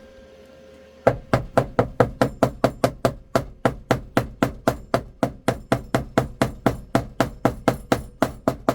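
Mallet tapping a glued plug into a hole in a counter, in a steady run of quick, even strikes about four a second, starting about a second in.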